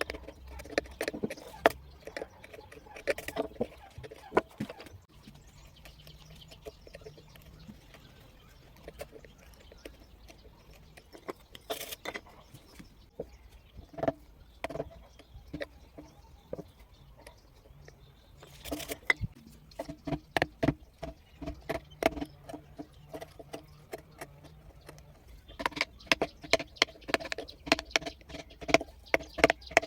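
A V chisel tapped into wood with a mallet while carving: runs of quick, hollow wooden knocks, several a second, in bursts with short pauses between them.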